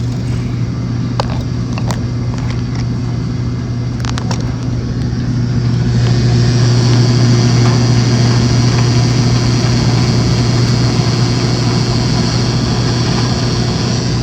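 Belt-driven Maytag washing machine running with a steady hum and no grinding, the grinding that a broken water pump had caused now gone. A few light clicks early on; about six seconds in the machine gets louder and a higher hiss joins the hum.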